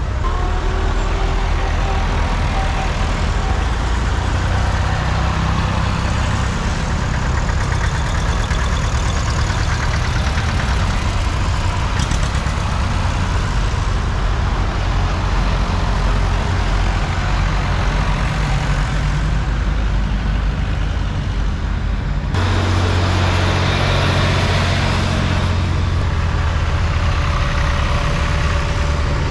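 Engines of vintage farm tractors passing one after another along a road, a continuous low engine hum. About 22 seconds in a louder, deeper engine note abruptly takes over as a green John Deere tractor comes past.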